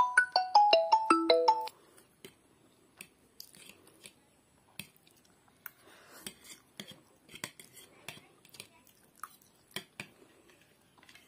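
A short bright marimba-like tune plays for the first second and a half, then stops suddenly. After it come soft eating sounds: chewing and slurping instant noodles, with scattered faint clicks of a fork on the plate.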